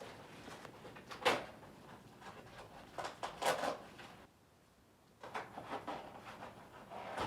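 A mailed package being torn open and handled by hand: rustling and tearing of packaging in several bursts, with a sharp tear about a second in and a short pause a little past the middle.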